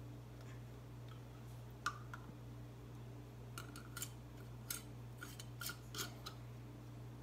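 Canning lid and metal screw band being fitted onto a glass pint canning jar: a couple of light clicks about two seconds in, then a string of short clicks and scrapes as the band is twisted down on the jar's threads.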